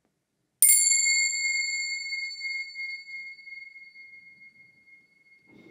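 Tingsha cymbals struck together once, about half a second in, ringing with a clear high tone that slowly fades over several seconds. The strike is the signal that opens a guided meditation.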